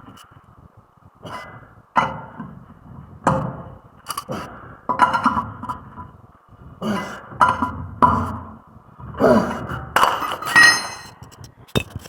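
Metal hand tools and brake parts clinking, knocking and scraping in a string of short hits about a second apart, with a ringing metallic strike near the end.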